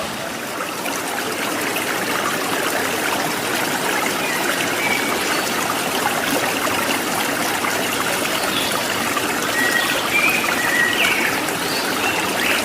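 Steady rush of flowing water from a waterfall stream, with a few faint short high chirps over it in the second half.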